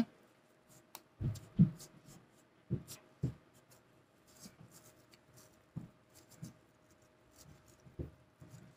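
Hands wrapping a cord around a bundle of ribbon and lace trims to bind the neck of a tassel: scattered soft rustles and small bumps, about one every second or so, with short quiet gaps between them.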